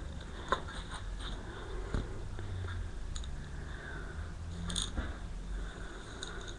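A dog breathing and sniffing close by, with a few faint short clicks.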